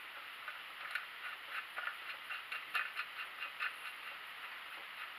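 Light, irregular clicks, several a second, from a nut being spun by hand onto the threaded shaft over a conical washer on a YaMZ-238 oil centrifuge.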